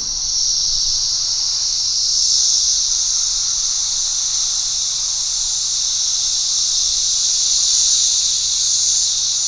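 Cicadas buzzing in a continuous, steady, high-pitched drone.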